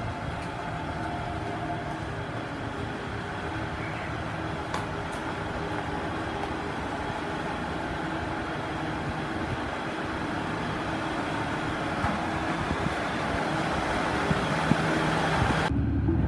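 Steady rumble and hum of a train at a station platform, slowly growing louder. Near the end it cuts to the duller, low rumble heard inside a train car.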